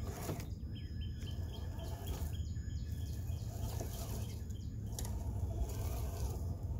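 Steady low rumble of wind on the microphone, with birds chirping. Over it comes the faint motor whine and rock-crunching of a Traxxas TRX-4 Bronco RC crawler crawling over rocks and leaves, with a few sharp clicks.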